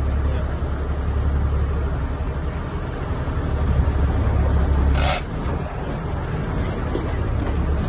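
Boat engine running with a steady low rumble under wind and sea noise. A short clatter comes about five seconds in, after which the low rumble drops away.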